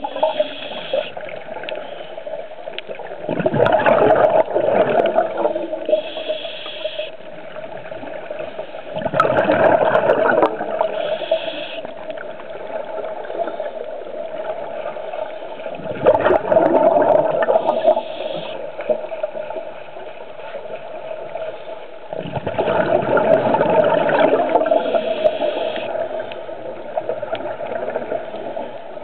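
Scuba diver breathing through a regulator underwater: a short hissing inhale, then a loud bubbling exhale, four breaths about six seconds apart.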